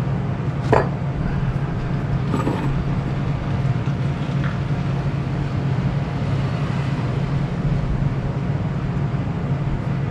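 A steady low background hum, with two light metallic clicks about one second and two and a half seconds in as small metal drill-press parts are handled on the bench.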